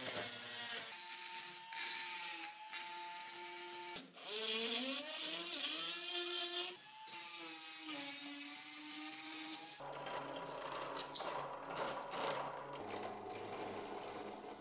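Handheld rotary tool with a small grinding bit running against the iron of a horseshoe, cleaning rust out of the nail holes: a high motor whine whose pitch rises and falls as it bears on the metal. In the last few seconds this gives way to a drill press cutting into a nail hole, a rougher sound without a clear pitch.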